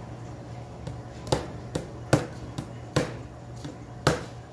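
A hand tool knocks against the metal header plate and crimp tabs of a Mercedes-Benz 190 radiator. There are about seven sharp knocks at uneven intervals, each ringing briefly.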